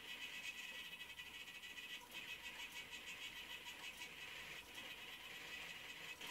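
Faint, steady whir of the homemade CNC machine's small geared DC motors turning its threaded-rod drives, as the carriage slowly moves a hot-wire styrofoam cutter.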